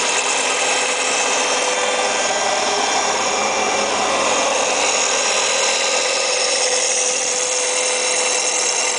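Mico Collet A015 gear shaper cutter grinder running, its grinding wheel spinning over a shaper cutter with a steady, high hiss and whine and several held tones.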